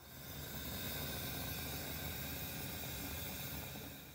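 A steady hiss with a faint low hum beneath it, fading in over the first second and fading out near the end.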